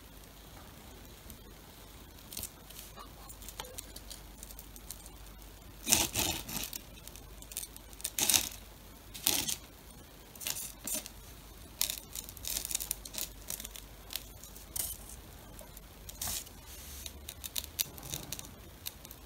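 Irregular scrapes, rustles and light clicks of hand work with small metal tools on a cardboard-covered bench, a thin steel needle being worked in epoxy in a small lid. The loudest scrapes come about six, eight and nine seconds in.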